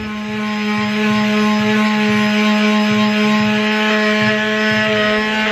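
Power tool motor running steadily at one constant pitch, then cutting off abruptly near the end.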